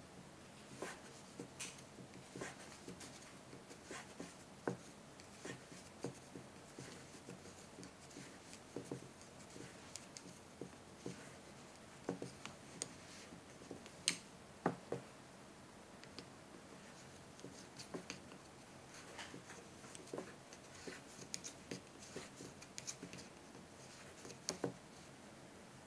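Wooden knitting needles clicking softly together and yarn rubbing as stitches are worked one after another across a row, in small irregular ticks.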